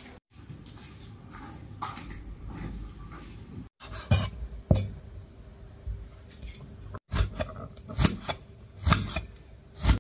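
Dishes and utensils being handled: clinks and knocks of bowls and cutlery, with several sharp knocks in the second half.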